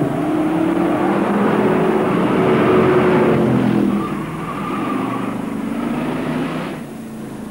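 An engine revving as a vehicle accelerates, its pitch gliding up and down, loudest in the first few seconds and falling away near the end.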